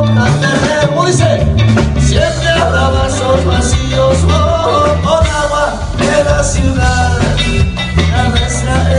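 A band playing a ska-style song with a singer over it: a bouncing bass line, drums with cymbals, and sung melody.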